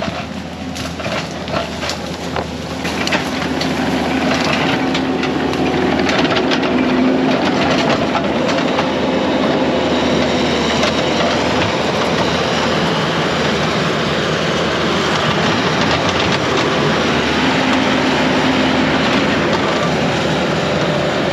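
Kubota SVL75 compact track loader's diesel engine running under load while its tracks clatter. Sharp cracks come in the first few seconds, and the sound grows louder over those seconds, then holds steady.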